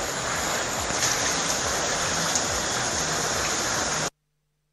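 Heavy rain and floodwater on a flooded street, a steady rushing noise of water that cuts off abruptly about four seconds in.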